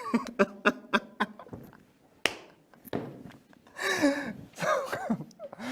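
A man's breathy, broken-up laughter and short vocal sounds, with a few light clicks and one sharper click about two seconds in.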